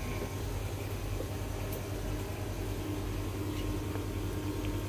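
Steady low mechanical hum with a faint hiss, from a running fan or appliance; no distinct events.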